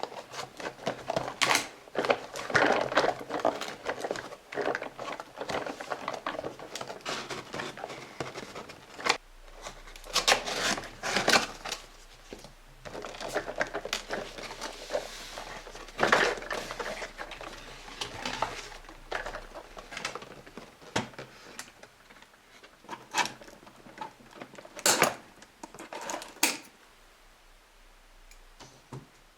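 Hands handling plastic toy parts of a Play-Doh crane playset: irregular clicks, taps and clatter, dense at first and sparser near the end.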